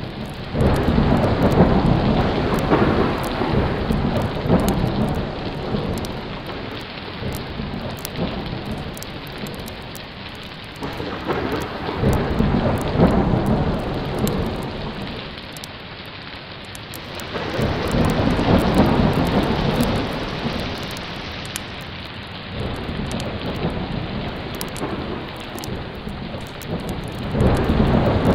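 Thunderstorm: steady heavy rain with rolls of thunder that swell and fade four times, deep rumbles rising about half a second in, near 12 s, near 18 s and again near the end.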